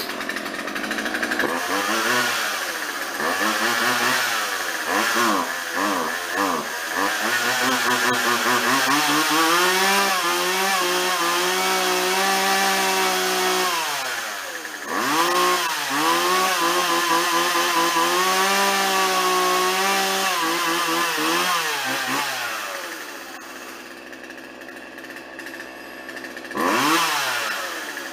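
Craftsman 2.2-cubic-inch two-stroke chainsaw running after being started, its revs rising and falling several times, then held high with one short drop in the middle. It settles to idle about 23 seconds in, with one more brief rev near the end: running again now that its swapped fuel lines are corrected.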